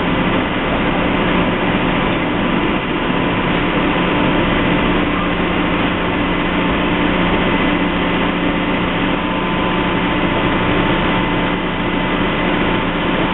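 Heavy construction machinery engine running steadily at a constant pitch.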